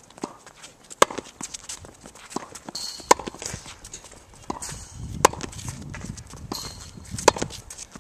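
Tennis rally on a hard court: four sharp racquet-on-ball hits about two seconds apart, with fainter ball bounces and footsteps between them.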